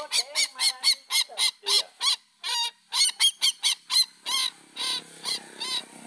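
Rail calls from a looped lure recording for the sintar (ruak-ruak): a fast run of short, harsh calls, about three or four a second, giving way to a few longer calls near the end.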